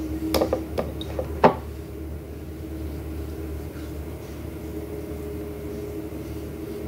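A few light clicks and knocks in the first second and a half, the loudest about a second and a half in, then a steady hum from a household appliance.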